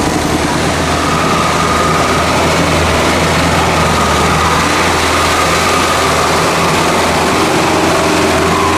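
Off-road vehicle engine running steadily, a loud even noise over a low hum that starts and cuts off abruptly, as an edited-in sound effect does.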